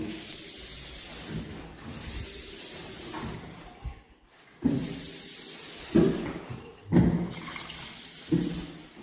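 Steady rushing water, broken by four loud thuds about a second apart in the second half.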